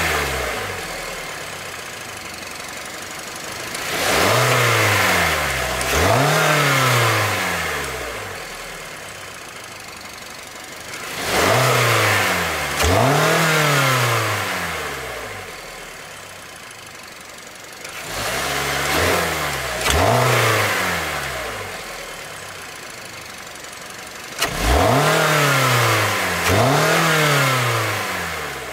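2017 Hyundai Sonata's 2.4-litre GDI four-cylinder engine, heard at the open engine bay, idling and revved in pairs of quick throttle blips four times, each time falling back to idle. It runs smoothly and rises and falls in pitch freely.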